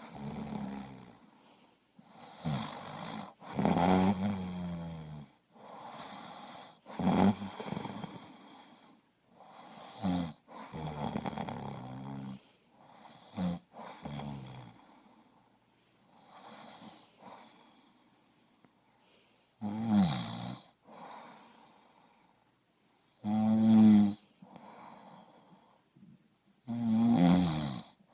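A person's breath sounds: a series of loud, throaty, snore-like breaths and gasps at irregular intervals, several with a pitch that slides downward. There is a quieter stretch of softer breathing in the middle.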